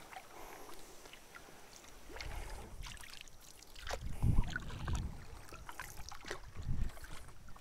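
Canoe paddle strokes in calm lake water: the paddle pulls through the water a few times, with small drips and splashes between strokes.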